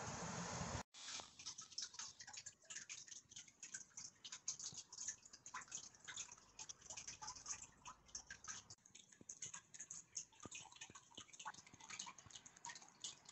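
Faint outdoor traffic hum that cuts off abruptly about a second in, then a near-quiet room with faint, irregular small clicks and ticks.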